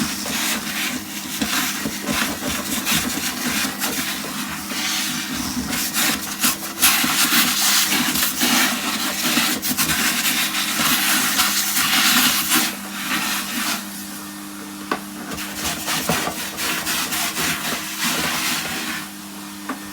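Numatic Bertie vacuum cleaner running with a steady motor hum while its hose sucks loose debris out of a dirty vacuum tub, with scraping, rattling and clicks as grit is drawn in and the hose end rubs around inside the tub.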